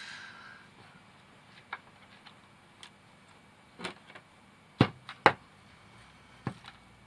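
Scattered light clicks and knocks from hands handling the robot vacuum's parts and wiring, with two sharper knocks about five seconds in, half a second apart.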